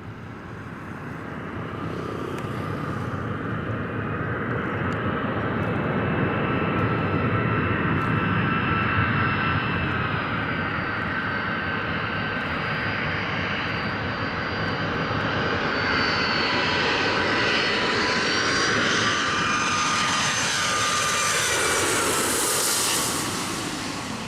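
Airbus A319 jet engines in a low pass: a steady roar with high whining tones that grows louder, then slides down in pitch as the aircraft goes by. It is loudest just before the end, where the sound cuts off.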